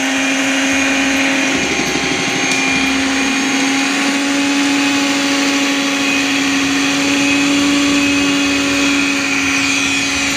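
Electric hand mixer running steadily at low-to-medium speed, its beaters whisking thick whipped egg batter in a plastic bowl as flour is added. It gives a steady motor hum at one unchanging pitch.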